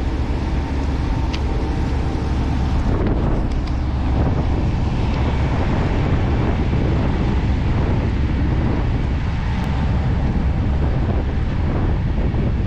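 Wind buffeting the microphone over a low, steady engine rumble, with a faint steady hum that stops about three seconds in.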